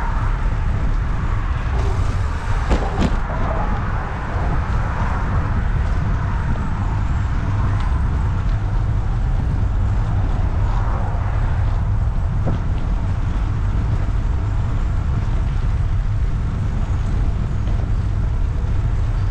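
Steady rush of motor traffic passing on the interstate lanes of the Woodrow Wilson Bridge, over a constant deep rumble, with a short knock about three seconds in.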